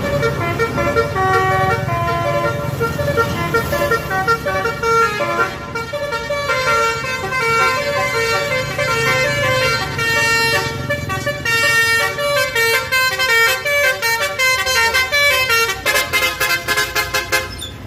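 Bus's Basuri multi-tone musical air horn playing a telolet melody: loud chords of trumpet tones stepping from note to note, over a low engine rumble, breaking into a fast run of short repeated notes near the end.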